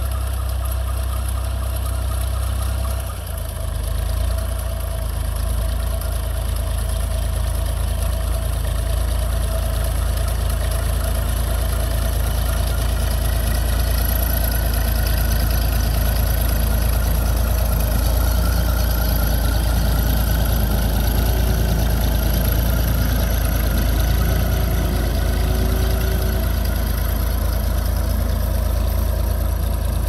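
Vintage Ferguson tractor's Perkins P3 three-cylinder diesel engine running steadily under load while pulling a plough through soil, briefly dipping about three seconds in.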